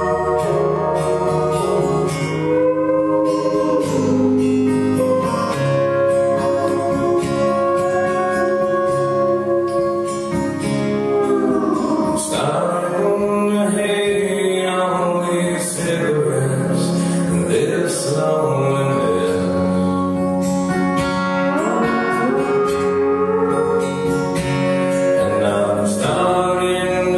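Live amplified music: a man singing with guitar accompaniment, including sliding steel-guitar-like notes.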